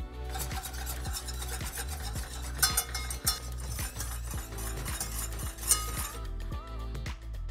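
Wire whisk stirring custard mixture in a stainless steel saucepan, scraping and clinking against the metal, with a few sharper clinks midway and again near the end. The whisking stops about six seconds in, over background music with a steady beat.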